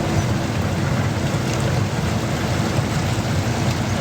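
Motorised bamboo raft under way in rain: a steady low motor rumble mixed with the hiss of rain and water, with wind on the microphone.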